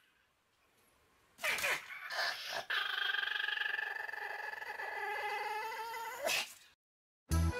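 Small dog, a Pomeranian, making short sharp snorts, then a long steady whine lasting about three and a half seconds.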